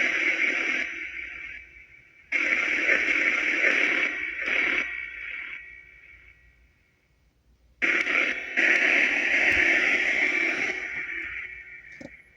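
Necrophonic spirit box app playing white noise through echo and reverb effects. It comes in three bursts that cut in suddenly and trail away, with a short near-silent gap before the last one.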